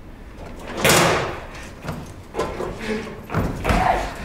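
Bangs and thumps of two actors scuffling on a raised wooden stage platform, about five in irregular succession, the loudest about a second in.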